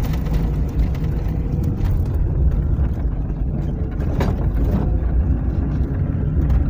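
IZh-2126 Oda car running, a steady low rumble of engine and road noise with a few faint ticks.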